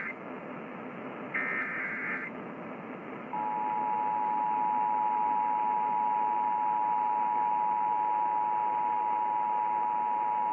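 Emergency Alert System test heard over broadcast radio. The end of one SAME header data burst is followed by a second short buzzing data burst, and from about three seconds in the EAS two-tone attention signal (853 and 960 Hz together) sounds as one steady tone. Steady radio hiss runs underneath.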